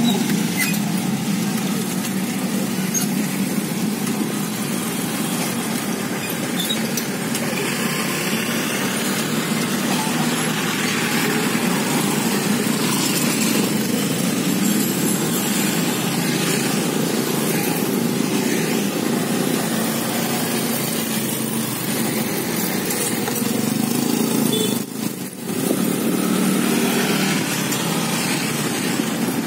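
Street traffic dominated by small motorcycle and scooter engines running and passing close by, a steady din that dips briefly near the end.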